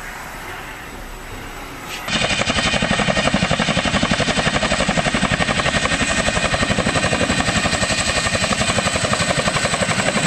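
CH-47 Chinook tandem-rotor helicopter in flight, its rotor blades beating in a loud, rapid, even chop that starts suddenly about two seconds in. Before that there is a quieter steady rushing noise.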